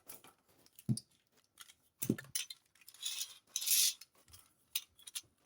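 Beyblade tops and launchers being picked up and handled: scattered light clicks and clinks of hard plastic and metal parts, with a short rustling hiss about three to four seconds in.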